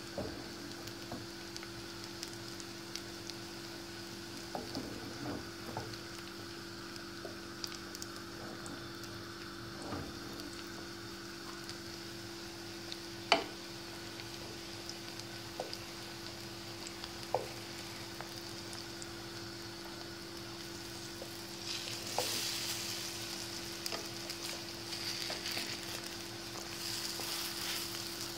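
Egg-and-milk-soaked bread slices frying in hot oil in a pan: a steady sizzle with scattered small crackles and pops over a low steady hum, and one sharp click about halfway through. About two-thirds of the way in the sizzle swells louder as slices are turned over onto their wet sides.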